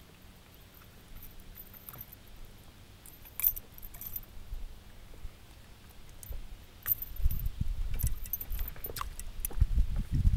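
Light metallic clinks and rattles of spinning tackle as a just-caught chub is handled, with one sharper click about three and a half seconds in. From about seven seconds in, low bumps and rumbles of handling grow louder.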